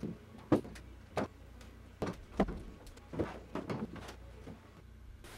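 Irregular metal clacks and knocks as a high-lift farm jack is pumped and repositioned inside an aluminum boat, pushing out a dent in the hull: about nine sharp knocks in five seconds.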